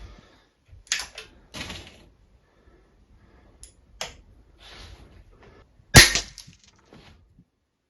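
Anschütz 9015 HP air rifle firing a single shot: one sharp crack about six seconds in. Before it come quieter clicks and rustles of the rifle being handled.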